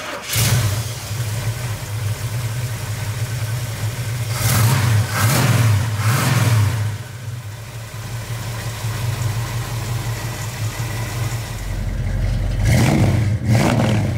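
Chevrolet 454 big-block V8 idling, blipped with a few quick revs about four to seven seconds in and revved again near the end.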